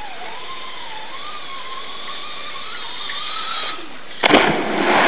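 Zipline trolley pulley running down the cable, a thin whine that wavers and slowly climbs in pitch as the rider picks up speed. About four seconds in, a sharp smack and a loud splash as the rider hits the water.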